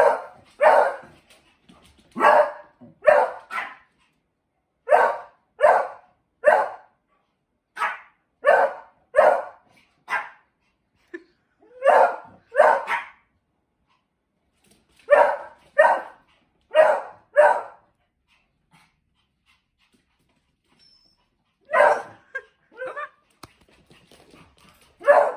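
A dog barking in quick runs of two to four sharp barks, with a pause of a few seconds near the end before the barking starts again.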